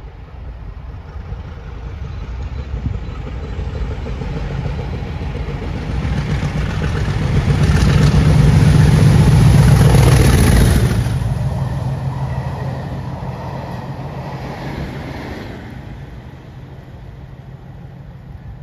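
English Electric Class 50 diesel locomotives, 16-cylinder engines running, approach, pass close by and draw away hauling a rake of coaches. The engine sound and wheel rumble build to a peak about eight to eleven seconds in, then fade as the train recedes.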